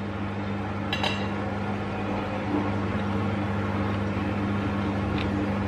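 Steady mechanical hum from a running household appliance, with a brief clink of cutlery against a plate about a second in.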